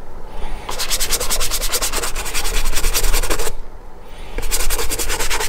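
Brush scrubbing colour cream into a leather boot in quick back-and-forth strokes. It comes in two spells, about three seconds of brushing from about a second in, then a brief pause, then brushing again near the end.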